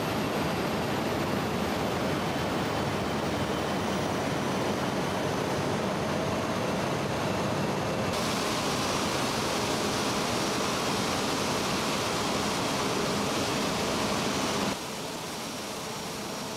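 Rolls-Royce Trent XWB turbofan engine of an Airbus A350 running steadily, a loud even roar. The sound changes about 8 seconds in and becomes quieter near the end.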